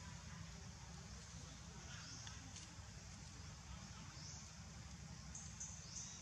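Faint outdoor ambience: a steady low rumble under an even high hiss, with a few faint clicks and soft high chirps.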